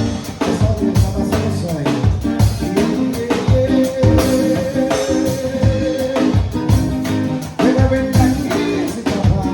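Live band playing a song: a drum kit keeps a steady beat under guitar, and a singer holds one long note near the middle.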